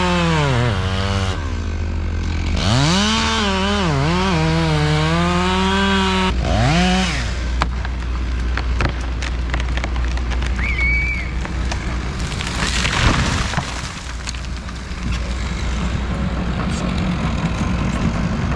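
Two-stroke Stihl 461 chainsaw revving up and down through a cut, then dropping off after about six seconds, over the steady low running of the forestry grapple machine's engine. After the saw drops off come scattered cracks and knocks of wood, with a louder crash about two-thirds of the way through.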